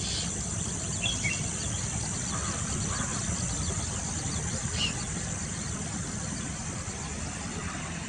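Outdoor marsh ambience: insects drone steadily at a high pitch over a constant low rumble, with a couple of short, faint bird chirps, one about a second in and another near five seconds.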